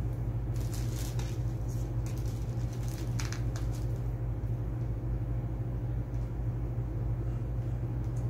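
A steady low hum of room noise, with faint rustles and light clicks from hands handling hair and small jewelry, mostly in the first few seconds.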